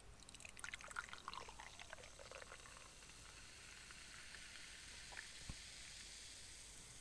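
Carbonated energy drink poured out of a can, faint, with a couple of seconds of splashing and then a fine fizz of bubbles that slowly dies away.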